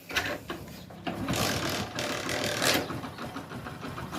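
Hero Honda Splendor Pro's single-cylinder four-stroke engine starting up, running louder for a second or so, then settling into a steady, even idle. A new camshaft bearing and timing chain kit have just been fitted, and the engine runs smoothly, without the earlier tick-tick from the valve train.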